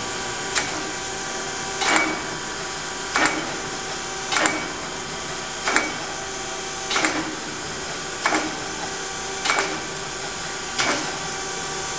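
Chevalier FSG-1224AD hydraulic surface grinder running in automatic mode: a steady machine hum with a sharp knock about every 1.3 seconds as the table reverses at each end of its stroke.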